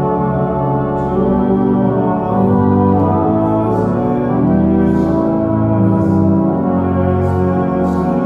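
Organ music: slow, sustained chords that change every second or so.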